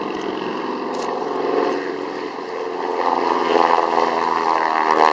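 Boeing Stearman biplane's radial engine and propeller droning steadily in flight, growing louder about three seconds in as it nears.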